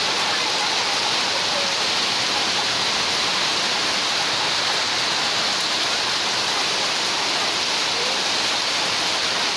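Rain falling steadily on a corrugated tin roof, an even hiss with no breaks.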